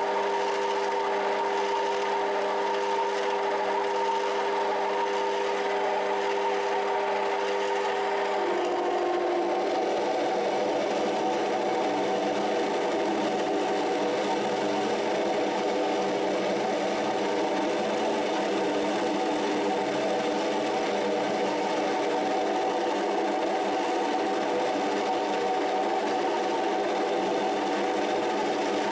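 Rotwerk 7x14 mini metal lathe running with a steady motor-and-gear whine. About eight seconds in, the pitch of the whine shifts and the sound turns rougher, then runs on steadily.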